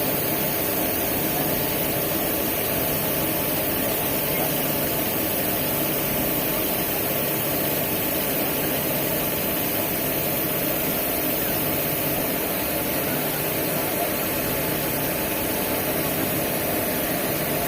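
Indian Railways WAP-4 electric locomotive running at a standstill: a steady whir and hum of its on-board machinery, with a few constant tones and no change in pitch or level.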